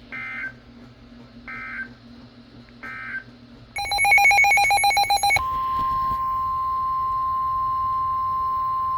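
NOAA Weather Radio alert signals: three short bursts of digital SAME data chirps, a loud rapidly pulsing electronic tone for about a second and a half, then the steady 1050 Hz warning alarm tone, which starts about five and a half seconds in and holds, signalling that a warning is about to be broadcast.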